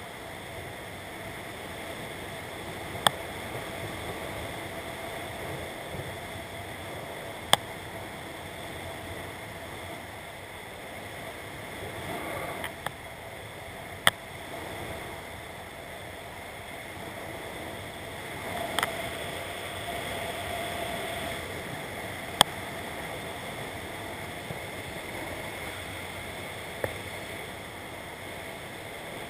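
Steady wind rushing over a helmet-mounted camera's microphone during flight under an open parachute canopy, with about five sharp clicks spread through.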